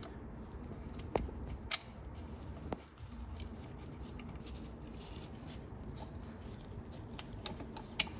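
A few faint, scattered clicks and light metallic taps as the small 10mm thermostat mounting bolts are handled and started by gloved hand into the water pump.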